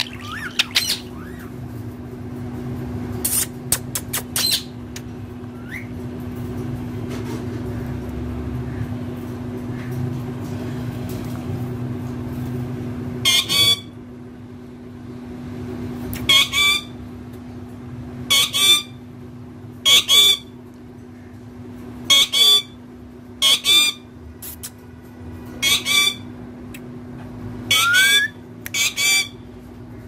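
Indian ringneck parrot giving a series of short, harsh squawks, about one every second or two, starting about halfway through, over a steady low hum.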